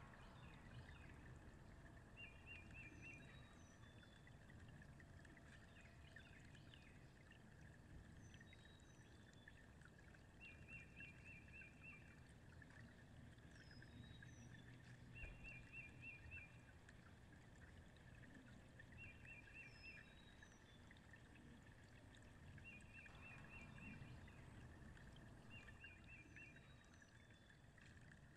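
Faint outdoor ambience by open water: a low, uneven wash of lapping water and air, with a bird repeating a short high trill every few seconds and a few faint high whistles.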